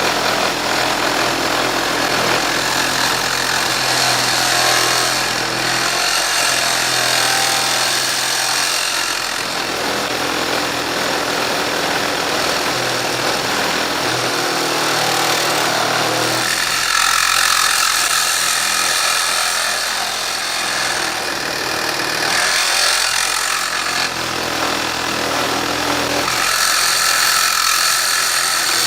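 Makita 12-volt max CXT cordless reciprocating saw cutting through a thick piece of aluminium, the blade rasping steadily while the motor's note shifts several times under load. The saw is struggling and catching on one area of the dense metal.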